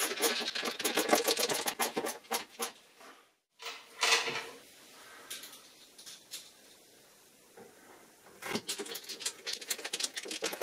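Hand ratchet screwdriver driving screws into kitchen cabinet panels: runs of rapid ratchet clicks, a quieter pause in the middle, then fast clicking again near the end.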